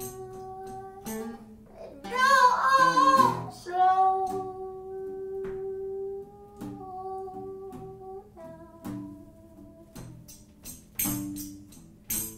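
Live song: a voice sings a slow melody of long held notes, swelling louder with a wavering tone about two seconds in, over sparse sharp percussion hits.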